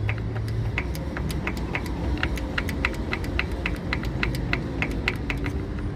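Hyundai i20 petrol engine running with a rapid tick-tick-tick from the timing chain, about four to five ticks a second over the engine hum. The mechanic takes it for the sign of a stretched, worn timing chain that the tensioner no longer holds tight.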